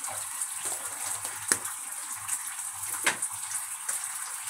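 Sweet and sour sauce of ketchup and sugar simmering in a nonstick wok, a steady bubbling sizzle with fine crackles and two sharp pops about a second and a half apart.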